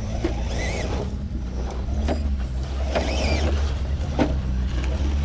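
Scale RC crawler trucks climbing over boulders: their electric motors whine up and down in pitch with the throttle, with a few sharp knocks as the tyres and chassis strike the rock. A steady low hum runs underneath.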